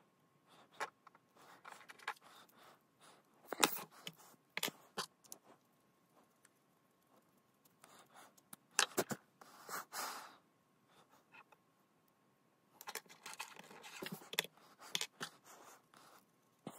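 LEGO bricks being handled and fitted together: scattered sharp plastic clicks and scrapes, with quiet gaps between them.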